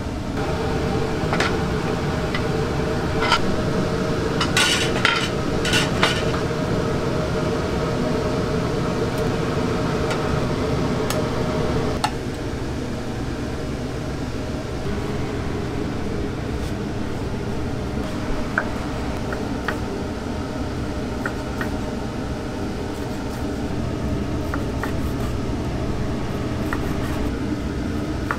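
Dishes and metal utensils clinking and clattering in a restaurant kitchen over a steady background hum. The sharp clinks come in a cluster in the first few seconds, with one more about twelve seconds in and lighter pings later.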